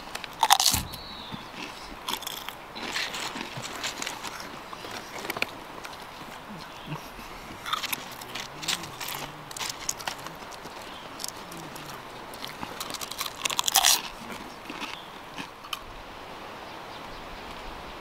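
Someone eating close to the microphone, irregular crunchy bites and chewing, with the loudest crunches just after the start and again about 14 seconds in.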